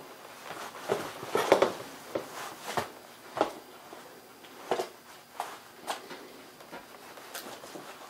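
Irregular light clicks, crinkles and knocks of a disposable aluminium foil roasting pan and carving knife as a roast turkey is carved and its meat pulled apart by hand.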